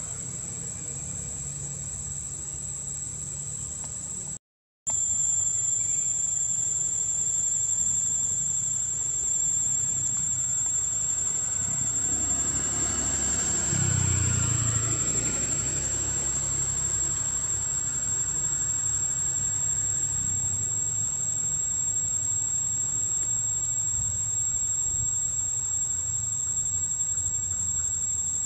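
Steady high-pitched drone of insects, with a motor vehicle passing by about halfway through, its engine rising and then fading away.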